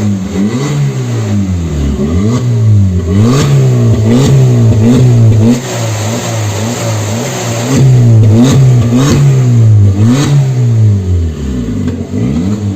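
Peugeot 308 1.6 four-cylinder engine revved repeatedly in short blips through an exhaust fitted with a sport exhaust diffuser. The pitch climbs and falls about a dozen times, giving a fairly mild, sporty exhaust note.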